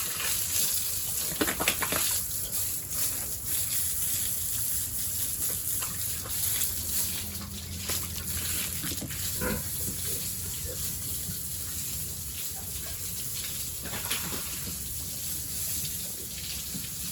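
Water gushing steadily while the pigs and their pen are washed down, with a few short knocks.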